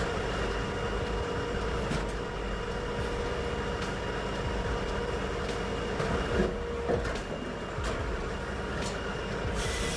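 Tajfun RCA 480 firewood processor running: a steady mechanical drone with a held tone, and short knocks from the cutting and splitting work, the loudest two close together about six and seven seconds in.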